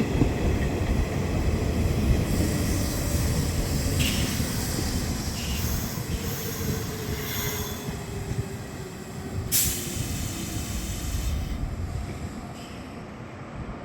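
Nishitetsu Tenjin-Ōmuta Line electric train running past with a heavy rumble and high wheel squeals, the sharpest squeal a little after halfway. A low hum slowly falls in pitch, and the sound dies down near the end.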